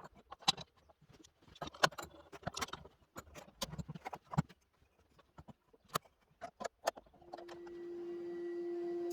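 A quick run of irregular clicks and knocks from handling tools and wood, then about seven seconds in an electric machine starts and runs up to a steady hum.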